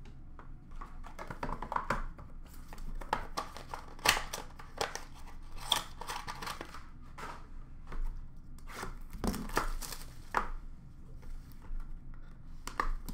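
Packaging of an Upper Deck Clear Cut hockey card pack being handled and torn open by hand: a string of irregular crinkles and rips.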